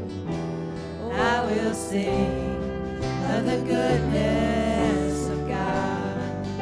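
Live church worship band playing a worship song: held chords over a bass line that changes note every second or two, with a singer's voice coming in over it a few times.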